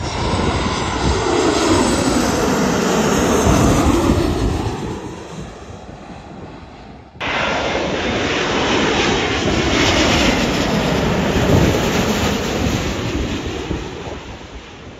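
Jet airliners passing low overhead on approach: engine noise with a whine gliding down in pitch as each goes by, then fading away. First a narrow-body twin-jet, then, after a cut about seven seconds in, an Airbus A350.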